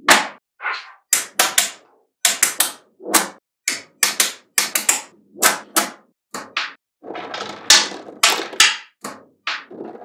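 Small neodymium magnetic balls snapping and clacking together as blocks of them are pressed onto a larger slab: an irregular run of sharp metallic clicks, about two a second, some in quick pairs or short rattles.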